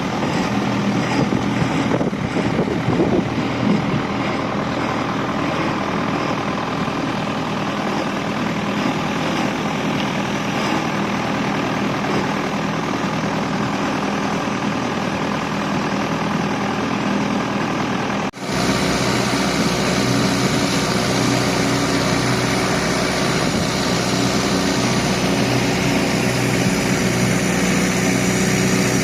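Boat engine running steadily. About two-thirds of the way through, the sound drops out for an instant and then carries on.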